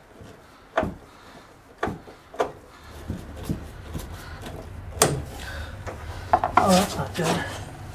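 Screwdriver working the mounting screws of a switch in a metal electrical box: a few separate sharp metal clicks, then a cluster of scraping and rubbing noises near the end.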